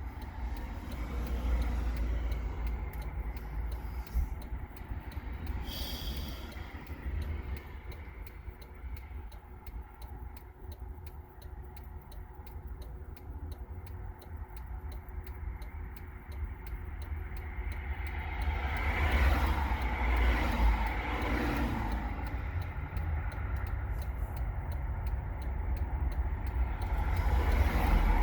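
Car engine idling, heard from inside the cabin as a low steady rumble, with a fast steady ticking over it. About two-thirds of the way through, another vehicle passes, swelling and fading over a few seconds.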